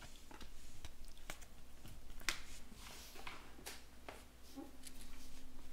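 Baseball trading cards being handled and flipped through: soft rustles of card stock and scattered light clicks as cards slide and are set down, with a few sharper snaps about a second, two seconds and three and a half seconds in.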